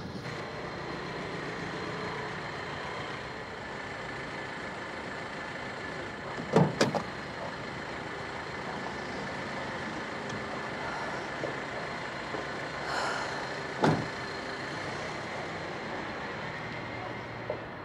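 A taxi's engine running steadily at idle, with a sharp double clunk of the car door about six and a half seconds in and another door clunk about fourteen seconds in.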